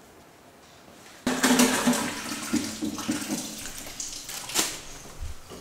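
Water rushing, starting suddenly about a second in and slowly dying away.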